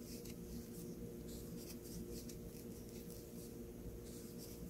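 Faint scratching and rustling of a metal crochet hook pulling yarn through single crochet stitches, in soft irregular ticks over a steady low hum.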